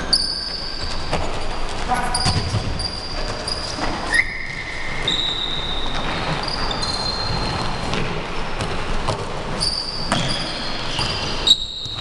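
Many short, high sneaker squeaks on a hardwood gym floor as futsal players run and turn, mixed with knocks of the ball being kicked and bouncing, in an echoing gym hall.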